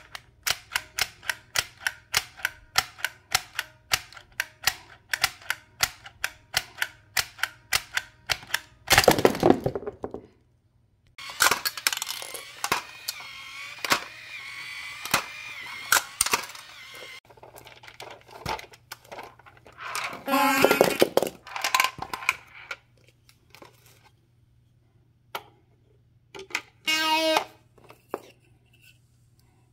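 Plastic toy mechanism clicking rapidly and evenly, about three to four clicks a second, for several seconds, then a sudden loud clatter and a run of assorted plastic clacks and rattles as the toys are handled. A few short pitched toy sounds follow near the end.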